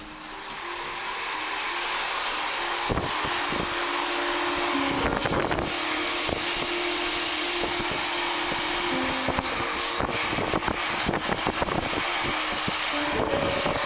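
Hair dryer blowing steadily, swelling up over the first two seconds and then holding even, with scattered short knocks and rubs through it.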